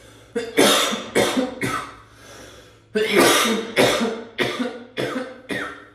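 A person coughing hard in two fits: about four coughs, a short pause, then a longer run of about six coughs.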